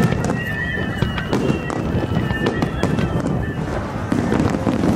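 Fireworks display: aerial shells bursting in a rapid run of sharp bangs and crackles over a low rumble. High held piping tones sound over the bursts and fade out about three and a half seconds in.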